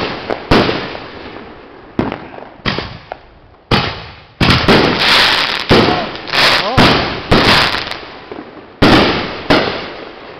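Excalibur consumer aerial firework shells bursting in quick, irregular succession: about a dozen sharp bangs, each trailing off in echo, with dense crackling between the bangs in the middle of the stretch.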